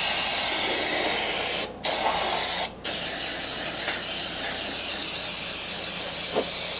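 Pneumatic undercoating spray gun with a long wand spraying Fluid Film rust inhibitor, tinted black, inside a truck fender. It gives a steady hiss of air and spray that breaks off briefly twice, about two and three seconds in.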